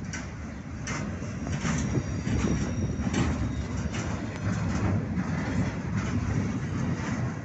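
Freight train of steel gondola cars rolling past close by: a steady rumble of steel wheels on rail, with clacks at the rail joints and a faint high squeal a couple of seconds in.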